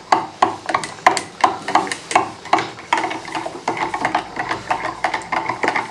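Gravy being stirred briskly in a pan, the utensil knocking and scraping against the pan about three times a second as the stock-based gravy is worked to thicken it.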